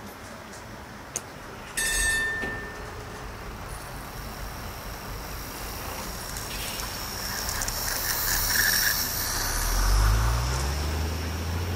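A tram bell rings once about two seconds in. Then an H0-scale model tram runs past, its running noise growing louder as it nears and peaking near the end, where a low hum rises in pitch.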